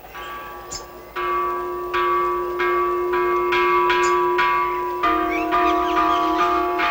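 Bells ringing: strikes about twice a second, each leaving long overlapping ringing tones, loud from about a second in, with a different set of pitches taking over at about five seconds. Faint high chirps of birds show above them.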